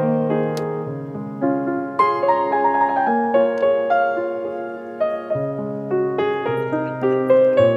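Background piano music: a slow, gentle piece of held notes struck a few at a time.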